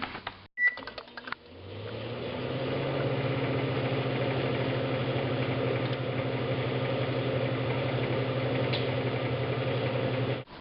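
Microwave oven being started: a few clicks and a short beep, then the oven running with a steady hum that stops abruptly near the end.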